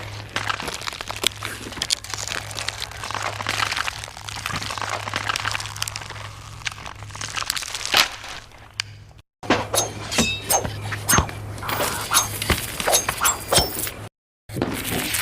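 A string of separate film sound effects: about nine seconds of dense crunching and crackling over a low hum, then a break and a run of sharp cracks and breaking impacts, cut off by brief silences.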